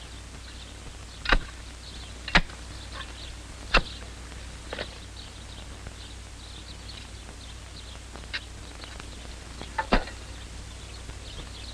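Half a dozen sharp knocks at irregular intervals, over faint, steady bird chirping and a low hum.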